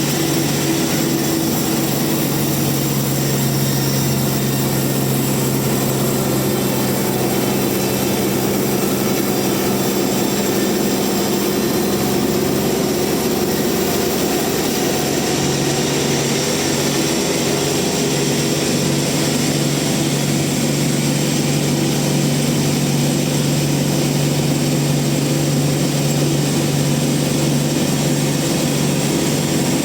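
Large sawmill bandsaw running steadily with a constant low hum, sawing through a rain tree (trembesi) log. Around the middle the hum briefly weakens and becomes noisier.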